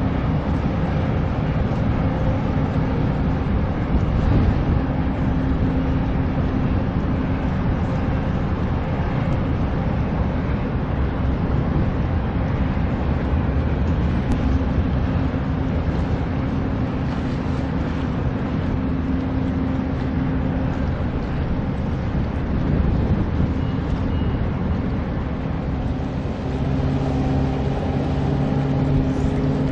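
Steady low engine drone over a continuous outdoor rush of noise. Near the end a second engine note joins, its pitch rising slightly.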